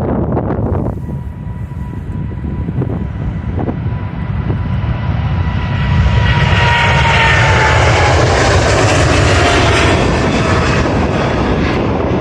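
Jet airliner passing by: a steady engine whine that slowly falls in pitch as it goes past, under a roar that swells about halfway through and stays loud for several seconds before easing off near the end.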